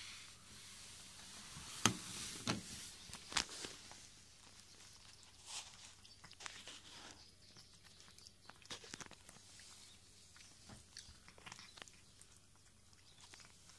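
A cat eating from a glass bowl: faint, irregular crunching and chewing of food pieces, with a few sharper crunches about two to three and a half seconds in.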